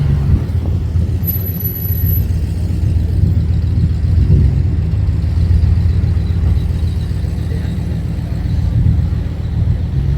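A steady low rumble, loud throughout and wavering in level, of the kind heard from road traffic or wind on the microphone.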